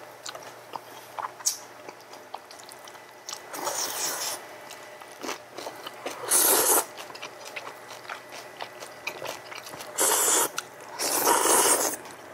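People slurping spicy stew noodles and chewing, with four loud slurps of about a second each and small clicks between them.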